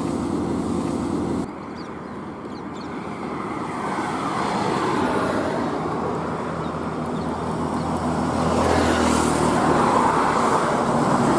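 Heavy diesel lorries passing on a highway, engine and tyre noise. A steady engine drone cuts off about a second and a half in. Then road noise builds as a loaded Ashok Leyland lorry approaches, and it is loudest near the end, when a car passes close by.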